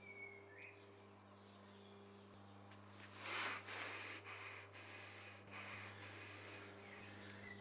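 A man breathing out hard through his nose, one short rush of breath a little over three seconds in, over a low steady hum.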